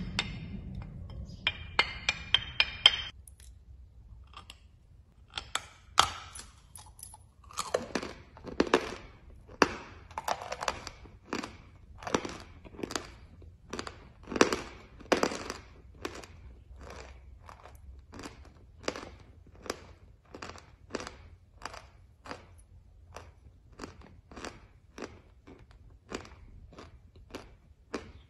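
Chalk tile being bitten and chewed, crisp crunches coming about one and a half a second, loudest in the middle and fainter toward the end. A few sharp ringing clicks come in the first few seconds.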